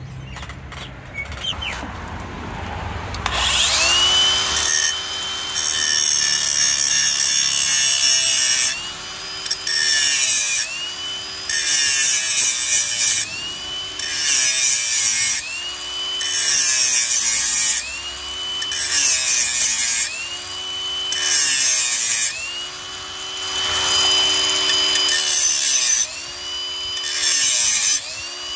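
Small handheld power tool cutting away part of a metal fin. It runs in short bursts about every two seconds, its whine spinning up and winding down each time, with a rasping buzz while it cuts.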